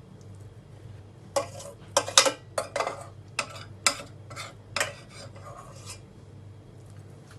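Kitchen utensils clinking and scraping against dishes: a quick run of about ten sharp clinks, loudest about two seconds in, that stops about six seconds in.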